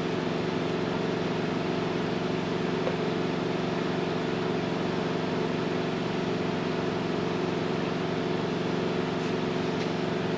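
Steady machine hum: a motor running continuously at one constant pitch, with several fixed tones.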